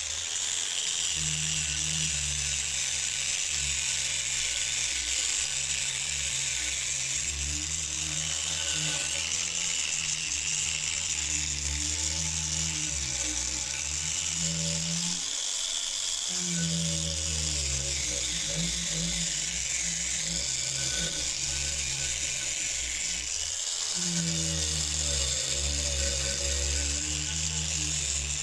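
Angle grinder with a wire cup brush running steadily and scrubbing rust off a steel spade blade, a high scratching hiss over the motor's hum. The motor pitch sags and recovers twice, about halfway through and again about two-thirds through, as the brush is pressed into the metal.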